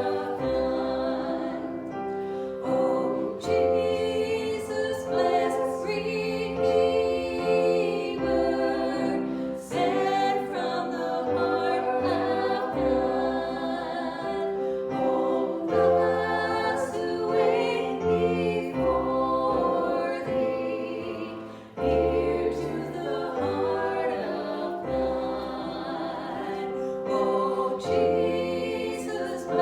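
A group of voices singing a worship song together over instrumental accompaniment, with low bass notes changing every couple of seconds.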